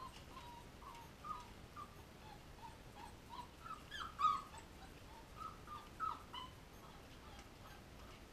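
A litter of young puppies whimpering and squeaking in short, high cries, one after another. The loudest cries come about four seconds in, and they die down near the end.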